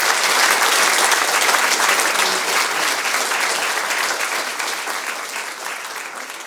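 Audience applauding at the end of a lecture. The clapping is dense and steady at first, then gradually dies away over the last couple of seconds.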